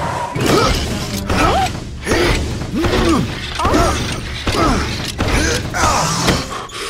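Cartoon sound effects of a truck hopping up and down on its springs: a rising-then-falling squeaky creak with each bounce, about seven times, roughly once a second, with knocks in between.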